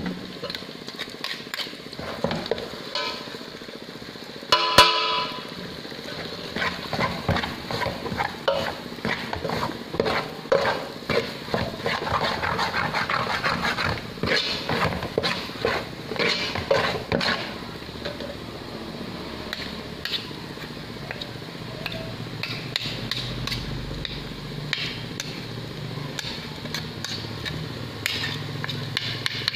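A metal ladle stirring and scraping a thick paste in oil in an aluminium pot, with repeated scrapes and small clinks against the pot's sides. There is one sharp ringing clang about five seconds in.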